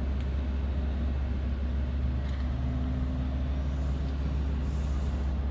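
A steady low drone.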